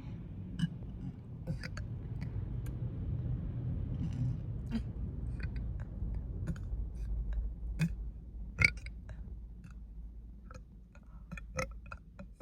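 A woman burping, low and drawn out, on gas from sparkling water, with short mouth clicks scattered through and one sharper click about three-quarters of the way in.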